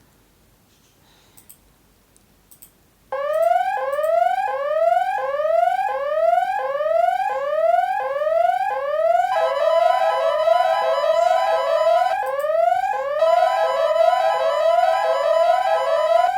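A few faint clicks, then about three seconds in a synthesized emergency alert alarm starts suddenly: a rising siren-like whoop repeating about twice a second. About nine seconds in, a steady tone is added underneath; it drops out for about a second, then returns.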